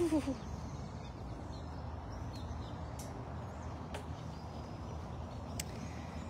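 Quiet outdoor background: a steady low rumble with a few faint clicks, the first two about a second apart, and the end of a falling call at the very start.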